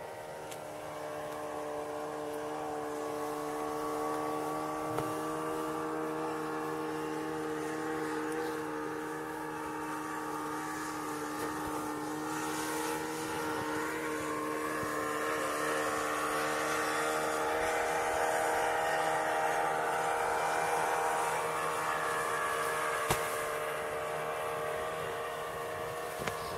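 A distant engine running steadily with an even hum, growing louder over the first few seconds, swelling most in the second half and easing slightly near the end. A couple of faint clicks sound over it.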